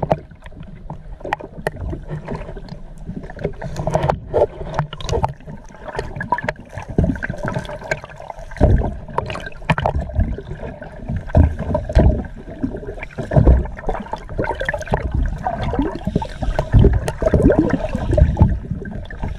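Shallow seawater sloshing and splashing against a small fishing boat's hull, with irregular knocks and clatters close by.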